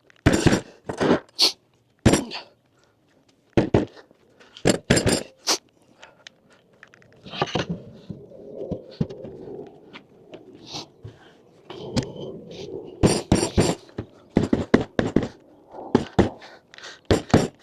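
Camper platform kit parts being knocked and pushed into place during assembly: groups of sharp knocks, with a stretch of scraping in the middle.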